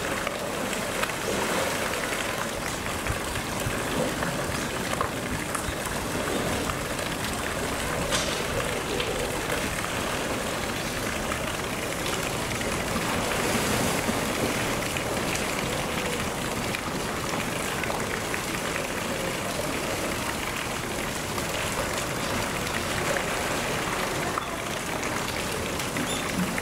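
Water splashing and rushing in a polar bear's pool as the bear swims: a steady wash of water noise with small spatters throughout.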